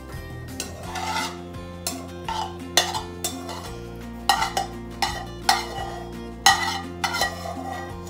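Metal spatula scraping cooked ground beef and onions out of a frying pan into a pot, with sharp clinks of metal on the pan's rim and the pot. Several clinks, the loudest coming about three seconds in and then roughly once a second.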